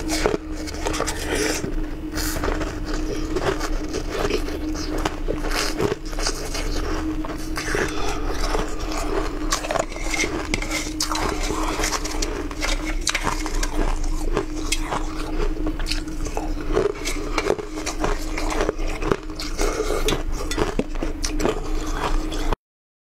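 Ice being bitten and chewed, with many sharp cracks and crunches, mixed with ice scraping against a perforated metal strainer bowl as pieces are picked out. A steady low hum runs underneath, and everything cuts off abruptly near the end.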